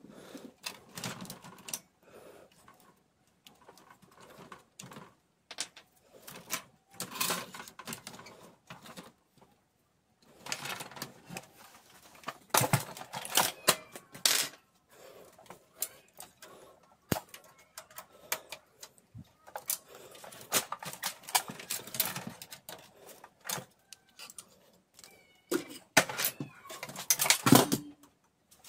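Irregular clicks, knocks and scraping of plastic and sheet-metal printer parts being handled as the fuser unit is taken out of a Canon i-SENSYS LBP6670dn laser printer. Louder bursts of clicking come about halfway through and again near the end.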